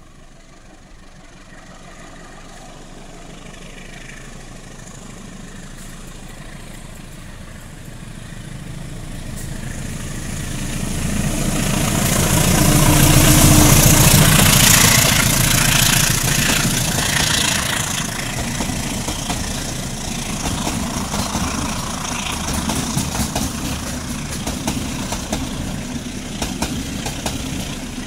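CC 201 diesel-electric locomotive (GE U20C) approaching with its engine growing steadily louder until it passes close about halfway through. Its passenger coaches then roll by, with wheels clicking over the rail joints.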